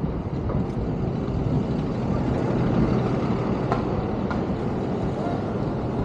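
City street traffic: a steady rumble of vehicle engines and road noise, with a low engine hum running under it and two faint clicks a little under four seconds in.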